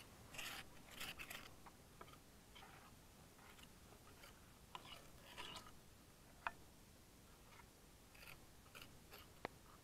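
Near silence with a few faint, scattered clicks and crackles.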